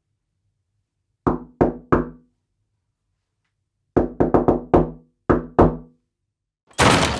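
Knocking on a wooden door: three quick knocks, a pause, then a run of four knocks followed by two more. Near the end a louder, harsher bang begins.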